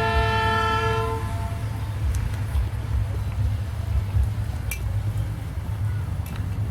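Locomotive air horn sounding a chord that cuts off about a second in, over the steady low rumble of a loaded freight train passing.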